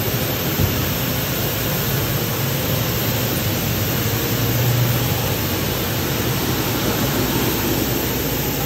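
NGR S:GRAN plastics recycling line running, shredding and extruding geotextile mat into pellets: a steady, loud machinery rush with a hissing top and a low hum underneath.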